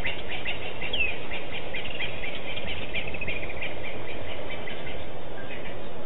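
Outdoor bush ambience: a dense chorus of quick high chirps, with one descending whistled bird call about a second in. The chirping thins out after three or four seconds, over a steady low background noise.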